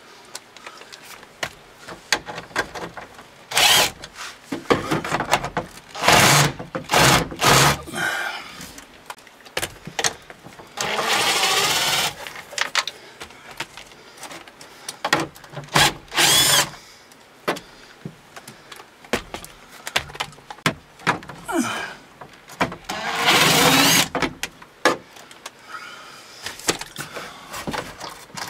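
Cordless drill-driver spinning out small hex-head screws in short bursts, two of them running about a second with the motor pitch rising and falling, between clicks and rattles of handling the tool and dash trim.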